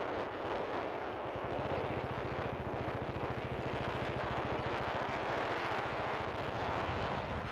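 Motorcycle engine running steadily on the move, its low pulsing thrum growing stronger about a second and a half in, under a heavy rush of wind over the microphone.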